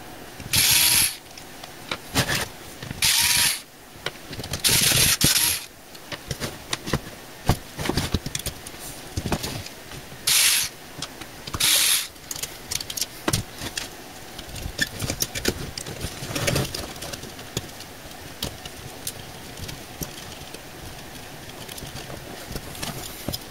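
Cordless drill/driver spinning in several short bursts, backing screws out of a computer power supply's sheet-steel case, with clicks and rattles of the case, board and wires being handled between the bursts.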